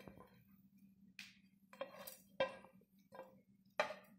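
Metal cooking pan clinking and scraping as the fried tempering is tipped and knocked out of it: several sharp ringing clinks and one brief scrape, spread a second or so apart.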